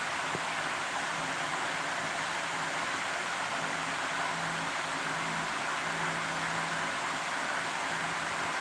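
Steady rushing noise, like a running fan, with a faint low hum that comes and goes.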